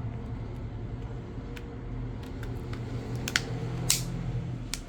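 Plastic back cover of a Samsung Galaxy A12 being pressed onto the phone, its clips snapping into place in a series of sharp clicks, the loudest two about three and four seconds in, over a steady low hum.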